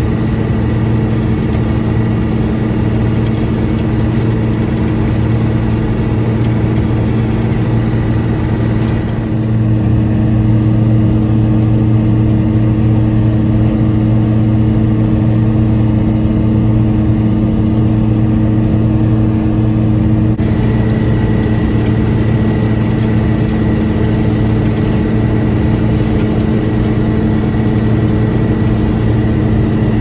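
John Deere combine running steadily as it harvests corn, its engine and threshing machinery a loud, constant drone heard from inside the cab. About nine seconds in the sound turns duller, with a new steady hum. It switches back abruptly about twenty seconds in.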